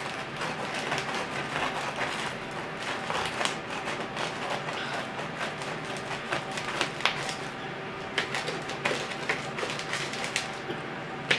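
Serrated knife sawing through a stuffed sub roll: irregular crunching clicks as the crust gives way, with a knock here and there.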